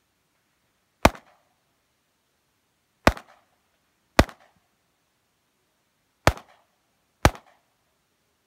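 Five pistol shots fired at an unhurried pace, one to two seconds apart, each followed by a short echo.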